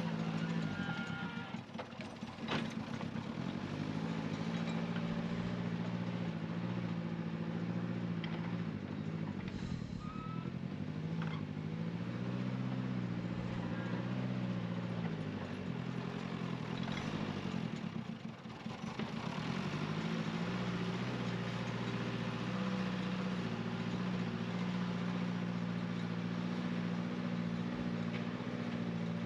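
Backhoe loader's diesel engine running under load while it levels soil. The engine note eases off briefly near the start and again about two-thirds of the way through, then builds back up.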